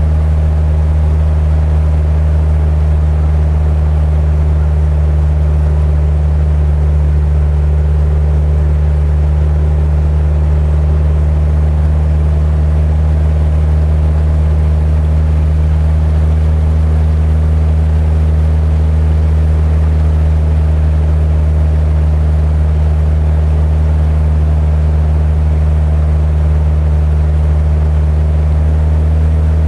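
A passenger boat's engine running steadily at cruising speed, a constant loud drone, with water rushing past the hull.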